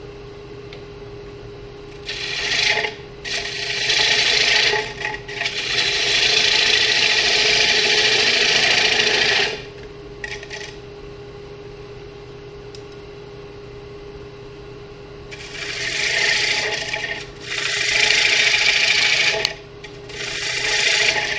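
Bowl gouge cutting the inside wall of a square walnut bowl spinning on a Powermatic lathe: a hissing cut in a series of passes, each one to four seconds long, with short pauses between, over the steady hum of the running lathe.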